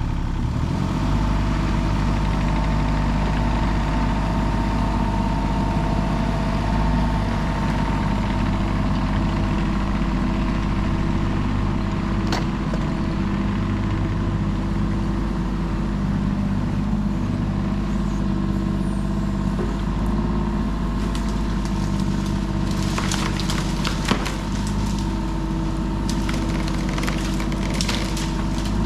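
Kubota KX033 mini excavator's diesel engine running steadily while the machine pushes small trees over. From about two-thirds of the way in, wood cracks and splinters in a string of sharp snaps as the trees break off and topple.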